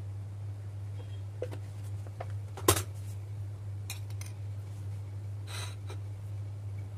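A steel spoon clicking and clinking against a plate, with one sharp clink about two and a half seconds in the loudest, then a brief scrape of the plate sliding on the countertop near the end. A steady low hum runs underneath.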